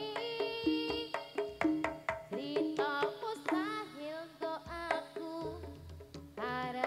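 Live jaranan gamelan music: quick kendang drum strokes and ringing gong-chime notes under a bending melody line, with a low gong note sounding about five and a half seconds in.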